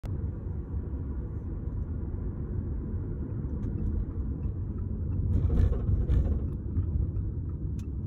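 Car driving along a street, heard from inside: a steady low rumble of road and engine noise. Just past the middle it swells briefly, with a rush of hiss.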